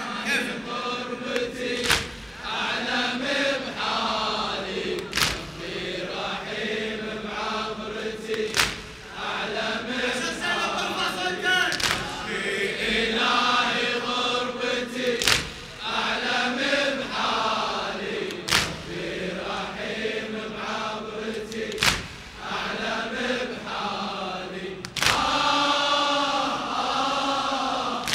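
Chorus of men chanting a Shia Muharram latmiya (mourning lament) in unison. A loud unison chest-beat (latm) lands about every three seconds.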